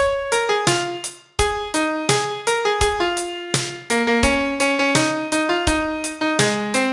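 Piano playing a simple melody, mostly one note at a time with firm, clear attacks, with a brief pause between phrases a little over a second in.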